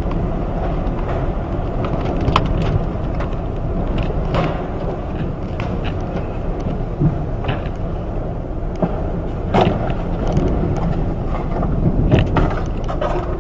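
Typhoon-force wind buffeting the microphone in a steady low rumble, with scattered knocks and rattles.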